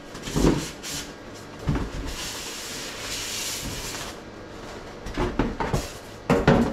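Packaging being handled while unboxing an RC truck: a long stretch of rubbing and sliding about two seconds in, with a few knocks and clicks of parts and cardboard before and after.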